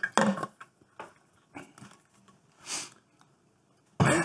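Close breathing and a single sniff a little past the middle, with light clicks of a plastic ketchup squeeze bottle being handled and a sharp snap of its cap being opened near the end.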